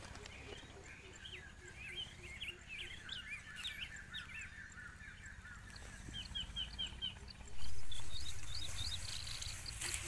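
Birds chirping and calling, with many short rising chirps over steady outdoor background noise. About three-quarters of the way through, a sudden louder rush of noise comes in and fades over a couple of seconds.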